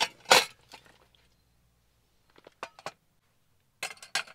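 Utensils and dishes being handled on a camp table: a knife clatters against a plate and cutting board, with a couple of loud knocks at the start and scattered lighter clinks and taps later.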